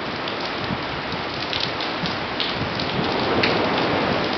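Heavy hurricane rain hitting pavement and puddles, with sharp drip and splash ticks over a steady rushing hiss, driven by gusting hurricane winds; the noise swells slightly near the end.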